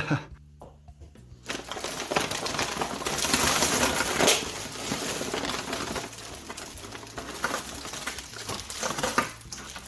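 Packaging being handled and opened: crackling, crinkling plastic and cardboard. It starts about a second and a half in, is loudest a few seconds in, and eases off later on.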